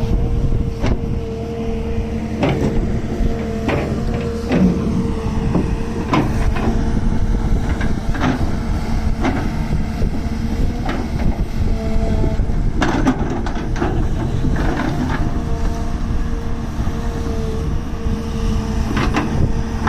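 Hitachi excavator working: its diesel engine running steadily with a constant hum, and irregular metallic clanks and knocks.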